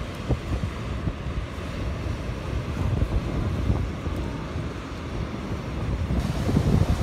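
Wind buffeting the microphone over the rumble of big waves breaking on the shore, rising in a gust about six seconds in.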